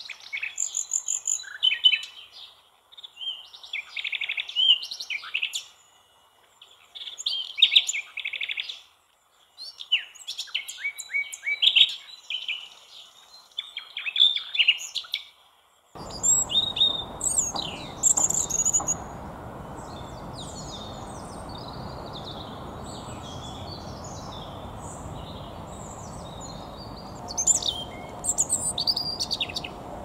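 A common nightingale singing in separate phrases of a second or two with short pauses between them. About halfway through, the sound switches to a European robin's high, thin warbling phrases over a steady background noise.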